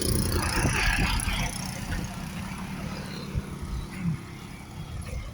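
Motor vehicle running on a road, louder for the first two seconds, then settling to a lower steady rumble.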